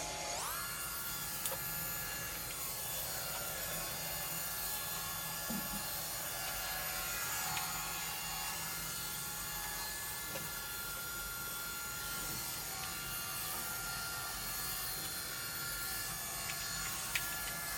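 iRobot Roomba 971 robot vacuum running steadily, its motor and brush whine sped up fourfold and so raised in pitch, with a few faint clicks.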